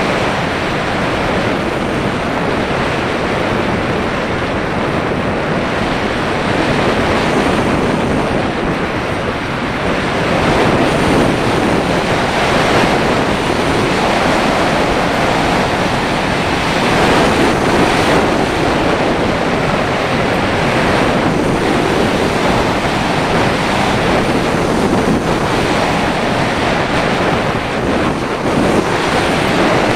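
Steady, loud rush of wind on the microphone of an action camera riding on an unpowered slope glider in flight, swelling and easing a little with the airflow.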